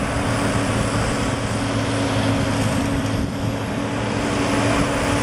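Crawler crane's engine running steadily as it moves, a constant low drone under a broad mechanical rumble.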